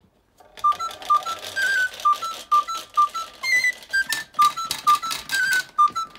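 Plastic clothespins toppling one after another like dominoes and glass marbles clicking as they roll, a rapid clatter of small clicks, over background music of short high notes.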